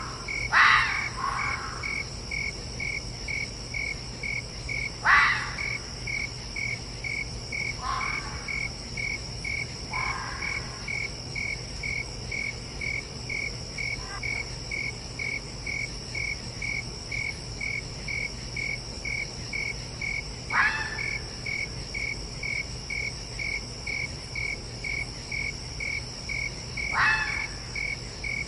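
Fox giving short, harsh barks now and then, each one dropping sharply in pitch, with a few fainter calls in between. Behind them crickets chirp evenly, about two chirps a second, over a steady high insect trill.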